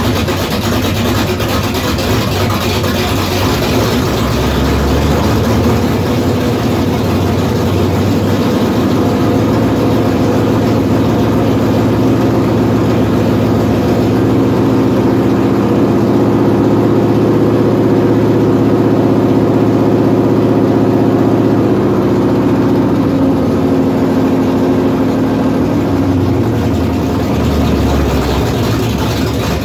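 1967 Pontiac GTO's new Pontiac 400 V8, bored and stroked to 475 cubic inches, running steadily. Its engine speed climbs a few seconds in, holds higher through the middle, then settles back down near the end.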